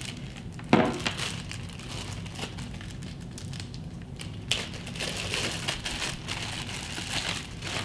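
Clear plastic packaging bags crinkling and rustling as boxed accessories are handled and unwrapped, with a sharp click about a second in.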